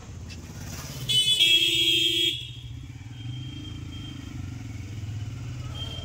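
Steady engine hum of road traffic, with a loud honk of a vehicle horn about a second in that lasts about a second.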